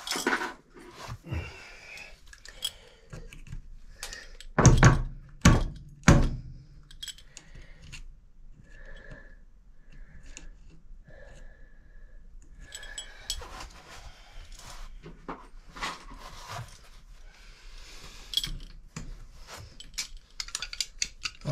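Metal clicks, taps and scraping as a Moen Posi-Temp cartridge and its tight retaining clip are worked into the brass shower valve body by hand and with pliers. There are three louder knocks about five to six seconds in, a few brief squeaks in the middle, and then denser clicking.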